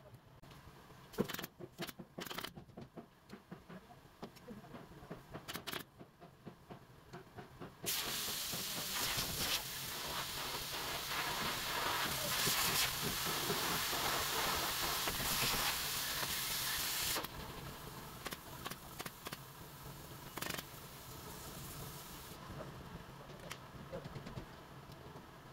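Workshop clicks and knocks, then a loud steady hiss that lasts about nine seconds and cuts off, followed by quieter scattered ticks.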